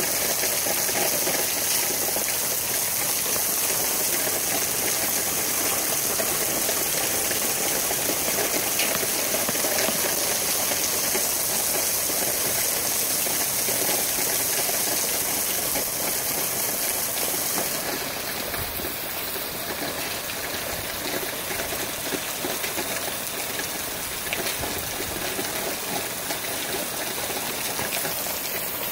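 Tropical-storm rain and strong wind making a steady, rushing hiss, easing slightly about two-thirds of the way through.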